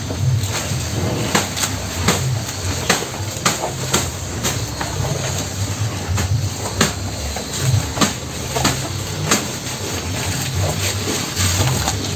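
Cows eating chopped fresh grass stalks from a feed trough, tearing and chewing them with irregular crisp crunches, one or two a second.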